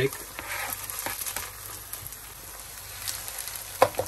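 Chopped onions sizzling in hot oil in a non-stick frying pan as sliced garlic is tipped in and stirred with a wooden spoon. A few sharp knocks of the spoon against the pan near the end.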